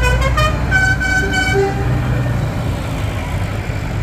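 Tractor engines running steadily as the parade goes by. Over the first two seconds a horn sounds a short tune of several held notes at changing pitches.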